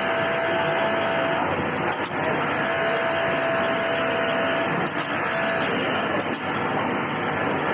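Industrial sewing machine running in stretches of about two seconds, its motor whine starting and stopping as it stitches, over the steady din of other machines. A few short clicks in between.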